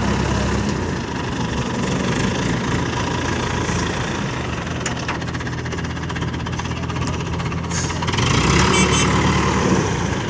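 Diesel engine of an ACE hydra pick-and-carry crane running under load as it travels carrying a suspended trailer body, growing louder about eight seconds in.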